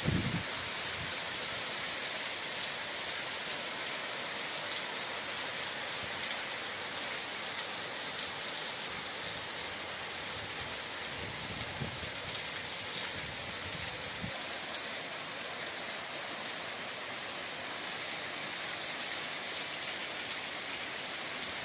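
Steady rain falling, an even hiss of drops, with a faint low rumble of distant thunder about halfway through.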